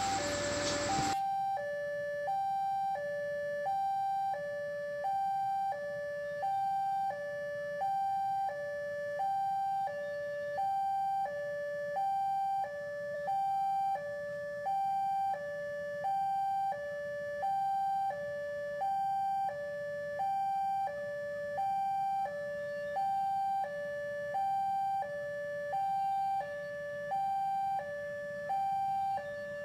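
Railway level-crossing warning alarm: a steady electronic two-tone ding-dong, high and low tones alternating about once a second, signalling that a train is approaching and the crossing is closed.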